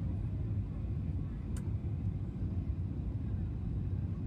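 Airliner cabin noise heard from a window seat over the wing during the descent: a steady low rumble of the engines and airflow. A single click about a second and a half in.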